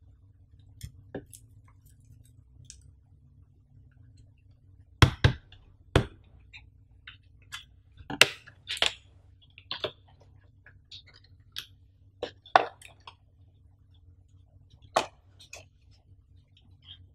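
Hands handling a cardboard earphone box and its clear plastic tray cover: scattered taps, clicks and crinkles, the sharpest a few knocks about five and six seconds in.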